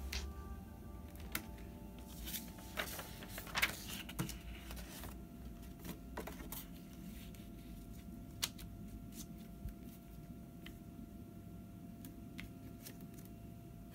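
Sheet of watercolor paper rustling and tapping against a light tablet as it is laid over a printout and smoothed flat by hand, with scattered clicks and handling noises that thin out after about halfway. A faint steady hum runs underneath.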